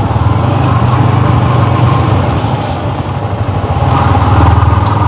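Yamaha MT-15's 155 cc single-cylinder engine running at low speed under way, easing off slightly about three seconds in and picking up again a second later.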